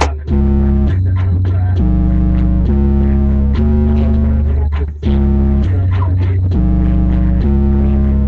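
Loud recorded music with a deep bass line that steps between notes about once a second in a repeating pattern.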